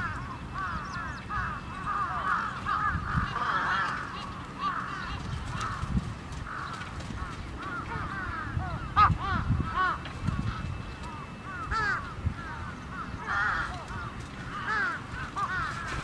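A flock of crows cawing over and over, many short arched calls overlapping, with a louder burst about nine seconds in. A low rumble runs underneath.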